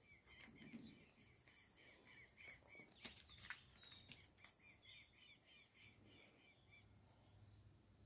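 Faint birdsong: a bird repeats short chirps rapidly, with a few higher sliding whistles around the middle. A couple of soft clicks come about halfway through.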